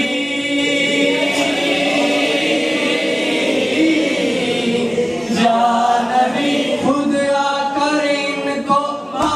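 Men singing an unaccompanied Urdu devotional refrain (naat) in a chanting style, with long held, wavering notes and short breaks for breath.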